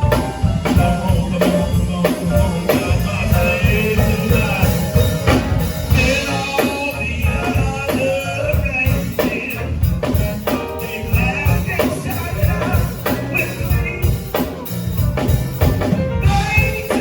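Band music with a drum kit keeping a steady beat over bass and sustained instrument or vocal lines.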